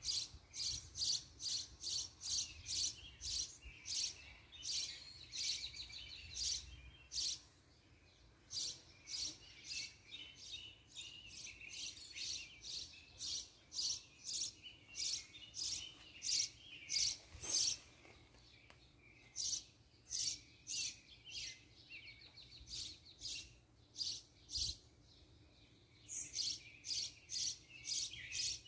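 Birds chirping: a long run of short, high chirps, about two a second, broken by a few short pauses.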